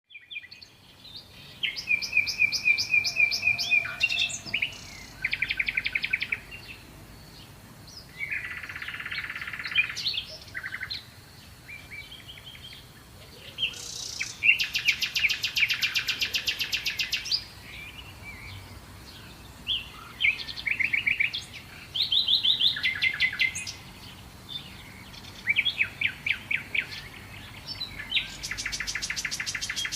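Birdsong: phrase after phrase of rapid, high trills and chirps, each a second or two long, with short pauses between them.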